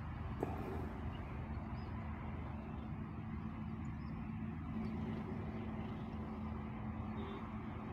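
Steady low background rumble with a faint steady hum that grows a little stronger about halfway through.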